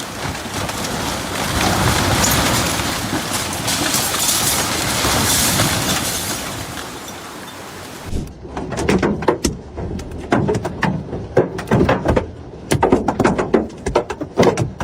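A steady rushing noise like heavy rain for about eight seconds. It then cuts to a clatter of many sharp, irregular impacts: hailstones pelting hard surfaces.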